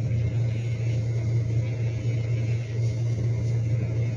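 Handheld electric pet nail grinder running with a steady low hum while its spinning tip files a French bulldog's claws.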